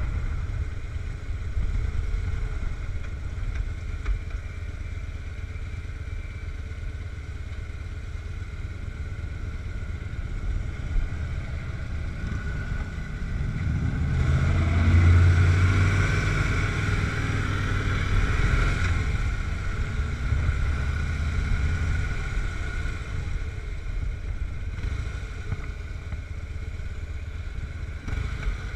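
Harley-Davidson V-twin motorcycle running on the road, heard from its own handlebars, with other motorcycles riding close ahead. The engine sound swells for a few seconds about halfway through, then settles back to a steady run.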